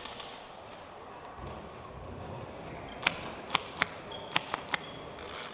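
Six sharp airsoft gun shots fired singly in an irregular string, starting a little past halfway through.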